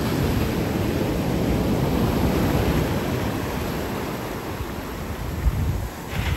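Ocean surf washing steadily onto the beach, with wind rumble on the microphone. The wash eases a little near the end, then swells again.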